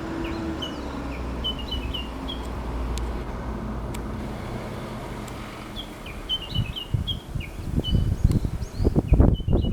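Japanese bush warbler giving its rapid repeated 'kekyo kekyo kekyo' call, a run of short, high, hooked notes heard twice, at the start and again about six seconds in. A low steady hum lies under the first part, and low rumbling thumps take over in the second half and are the loudest sound.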